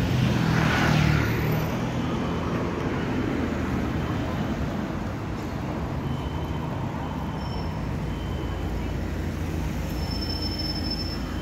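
City road traffic: a motor vehicle passes close by in the first second or so, then a steady low rumble of cars, vans and buses carries on.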